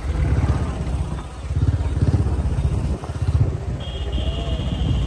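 Motorcycle engine running while riding, a low, rapid pulsing that eases off briefly twice and then picks up again. A thin steady high tone starts near the end.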